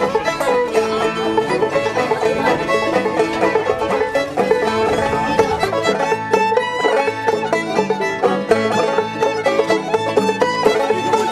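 Background music: a bluegrass-style string tune with banjo and fiddle.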